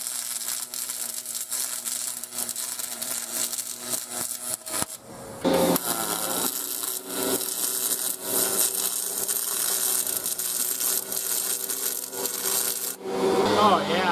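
Aluminum MIG welding with a spool gun, DC electrode positive: the arc runs with a steady hissing crackle for about five seconds, stops briefly, then runs again for about seven seconds before cutting off. A faint steady hum sits beneath it.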